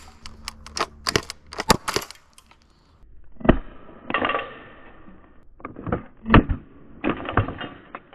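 Airsoft grenade launchers firing gas-powered BB shells. A run of sharp clicks and clatter comes first, then several sudden pops with short hissing blasts of gas, the loudest about six seconds in.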